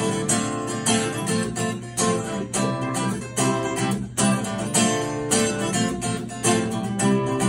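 Acoustic guitar strummed in a steady rhythm, about two to three strokes a second, in an instrumental break between sung lines of a song.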